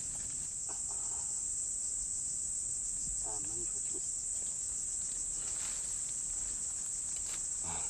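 A steady, high-pitched insect chorus shrills without a break, with a few quiet voices heard faintly about three seconds in.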